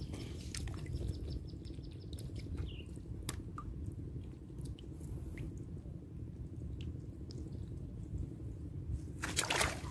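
Faint dripping and trickling water at a swampy reservoir edge over a steady low rumble, with scattered small ticks and a brief louder rustle near the end.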